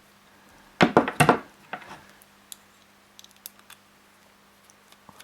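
Small hard parts being handled: a quick cluster of sharp clicks and knocks about a second in, a few more near two seconds, then scattered light ticks.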